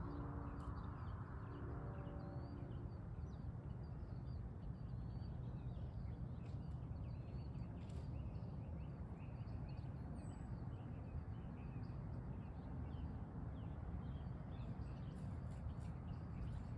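Small birds chirping and calling on and off over a steady low rumble, with a faint pitched hum during the first three seconds.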